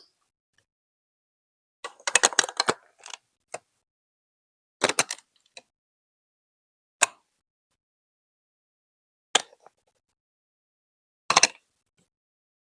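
Hard plastic Lego Duplo bricks clicking and clacking as they are handled and snapped together, in five short separate bursts about two seconds apart, the first a longer rattle.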